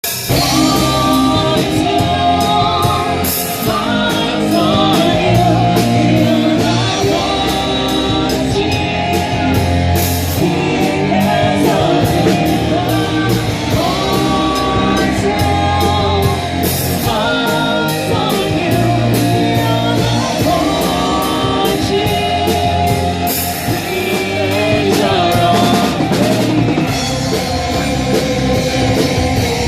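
Symphonic metal cover song: singing over a rock band with drum kit and guitars, loud and driving.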